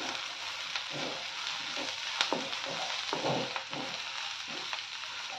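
Spiny gourd and onion pieces frying with a steady sizzle in a steel kadai on low heat, while a wooden spatula stirs them in repeated scraping strokes against the pan.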